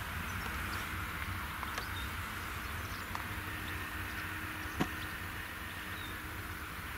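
Tractor engine pulling a mounted reversible plough through soil, a steady low drone, with one sharp click about five seconds in.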